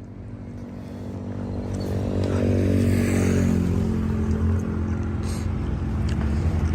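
An engine running at a steady pitch, getting louder over the first two seconds or so and then holding steady.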